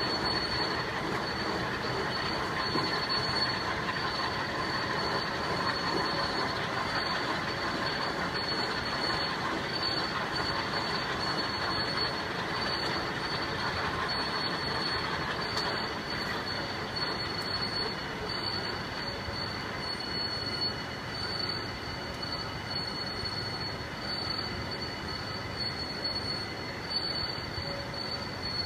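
CNC router spindle running steadily with a high-pitched whine as the cutter bores out a bearing seat.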